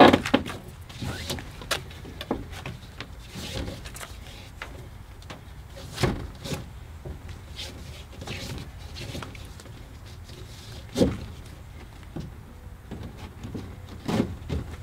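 A nylon tie-down strap being worked tight over a canoe on a roof rack: scattered clicks and knocks from the strap buckle and the hull, the sharpest about six and eleven seconds in.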